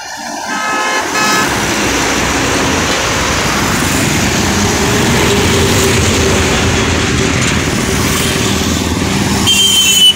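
Highway traffic passing close: heavy trucks and motorcycles going by with steady engine and tyre noise that swells in the first second or so. A horn toots briefly in short bursts in the first second or so, and a higher horn sounds near the end as a truck passes closest.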